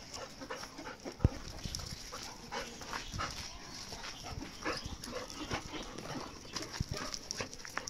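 A golden retriever and a black-and-tan puppy at rough play: short, scattered yips and growls among scuffing paws on gravel. One sharp thump comes about a second in.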